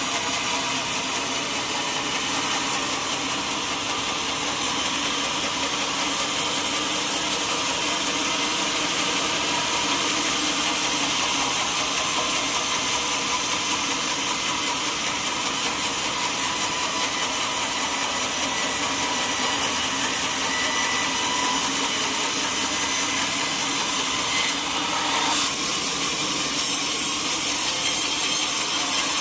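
Sawmill saw running and cutting through teak wood, a steady mechanical noise with a fine whine. The sound changes briefly near the end and then runs a little louder.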